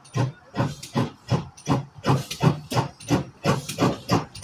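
GWR 1366-class pannier tank steam locomotive No. 1369 pulling a train of coaches away, its exhaust chuffing sharply at about four to five beats a second.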